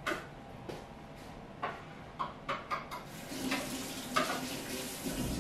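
Kitchen clatter of dishes and utensils being handled: a run of light knocks and clicks, joined about three seconds in by a steady hiss that lasts to the end.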